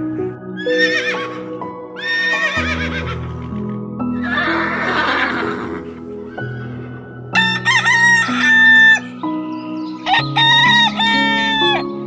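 Soft background music with farm-animal calls over it: two short calls in the first few seconds, a noisy burst in the middle, and two loud, longer calls broken into several pieces in the second half.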